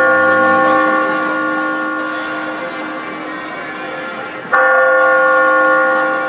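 A large bell struck twice, about four and a half seconds apart, each stroke ringing on with several steady tones and slowly fading.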